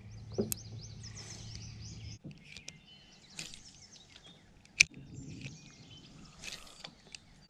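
Small birds chirping, with a quick run of repeated high notes in the first two seconds and scattered calls after. A single sharp click about five seconds in.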